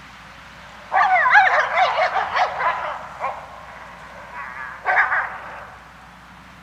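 Wolves giving a burst of rapid calls that rise and fall in pitch, made during copulation. The burst starts about a second in and lasts about two seconds, a few weaker calls follow, and another short burst comes near five seconds, over a steady hiss of wind in trees.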